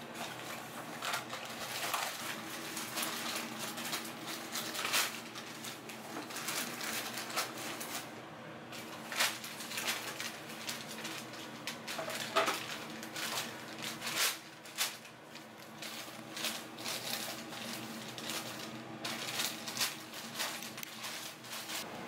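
Scattered light clinks and knocks of dishes and kitchen utensils on a hard counter, over a low steady hum.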